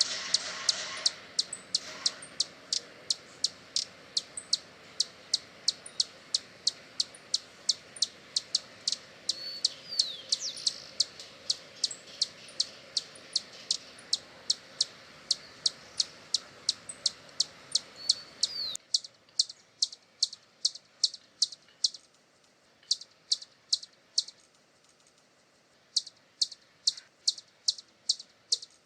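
Hummingbird calling: a long series of short, high chips, about three a second, with a few brief sliding notes among them. About two-thirds of the way through, the background hiss cuts out and the chips go on in short runs with pauses between.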